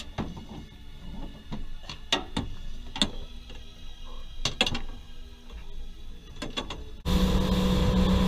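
Scattered knocks and clicks of handling on a boat deck, then about seven seconds in a boat's engine running steadily under way, much louder and starting abruptly.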